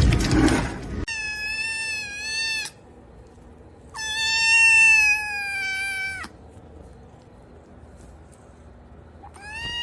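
About a second of loud rushing noise that cuts off, then a domestic cat meowing: two long, drawn-out meows, the second the loudest and slowly falling in pitch, and a third meow beginning near the end.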